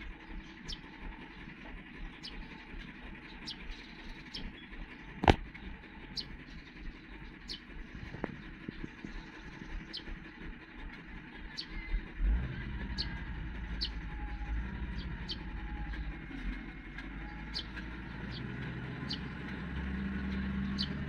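Heavy construction machinery engine running, its low rumble growing louder about halfway through. A single sharp clank comes about five seconds in, and short high chirps repeat about once a second in the background.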